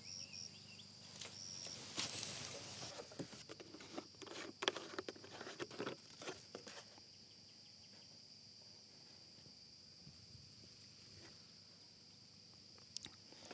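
A steady, high insect drone. Over it, in the first seven seconds or so, come rustling, clicks and plastic scrapes as a plastic jug is handled and its screw cap worked open; after that the handling stops.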